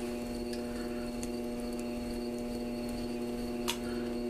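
Electric pottery wheel's motor humming steadily as the wheel turns slowly, with one light click near the end.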